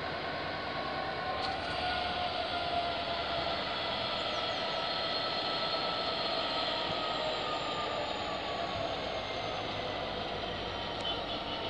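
Class 66 diesel locomotive approaching slowly, its two-stroke diesel engine running steadily, with a few tones that drift slowly down in pitch.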